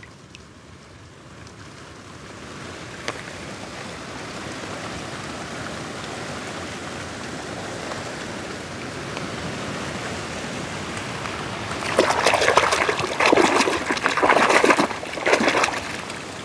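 Running water, a steady rushing that slowly grows louder; about twelve seconds in, loud irregular splashing as a small die-cast toy car is swished by hand through foamy water.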